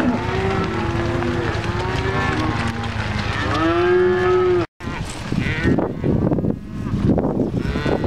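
A herd of cattle mooing and bawling loudly, many overlapping calls at different pitches. After an abrupt break just past halfway, the calls go on over a rougher, noisier background.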